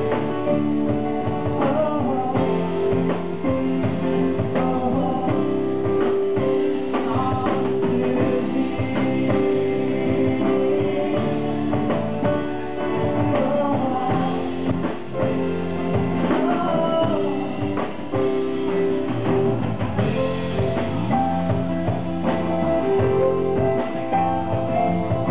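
Small live band playing a slow bluesy song: guitar, stage piano and bass together.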